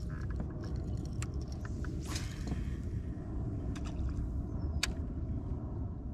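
Low, uneven rumble of wind on the microphone, with a few light clicks and a brief splash of water about two seconds in.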